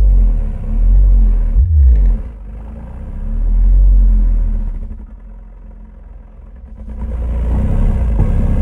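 JL Audio 10W7 subwoofer playing a deep bass test track, loud low bass swelling and fading every couple of seconds. It drops lower about five seconds in, and a fuller, denser bass comes back near the end.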